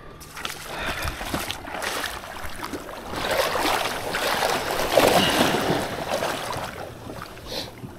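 Water splashing and sloshing around a kayak's hull, a noisy wash of small splashes that swells in the middle and eases off near the end.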